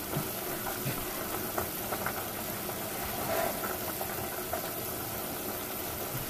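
A pot of soup boiling on the stove, a steady bubbling hiss, with a few faint small clicks.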